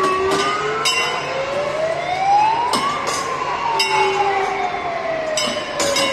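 Fire-truck wail siren rising slowly for about three seconds and then falling, while the truck's hand bell is struck several times.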